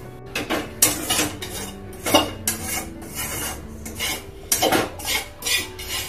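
Metal cookware and a spoon clattering at the stove: a string of sharp, irregular clinks and scrapes against a wok and pot as payesh is stirred and the pans are handled.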